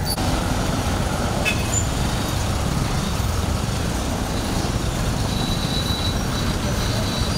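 Steady road traffic noise: vehicle engines running close by.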